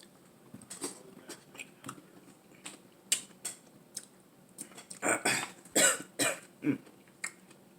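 A person coughing several times in quick succession about five seconds in, after scattered small mouth clicks and smacks of eating.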